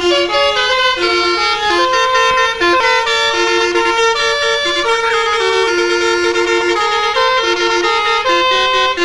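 Loud telolet bus horn, a multi-trumpet air horn, playing a tune of held notes that step up and down every fraction of a second without a break.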